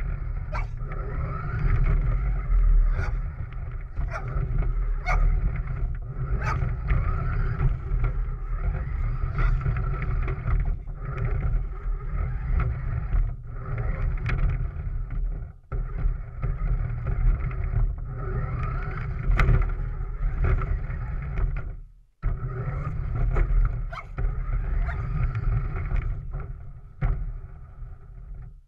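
Onboard sound of a remote-control car driving: its motor running with a steady whine and its wheels rattling over concrete and gravel, under heavy low rumble, with scattered clicks and knocks. The sound cuts out briefly twice.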